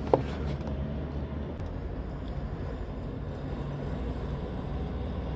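Steady low background rumble, like distant traffic, with one sharp click just after the start.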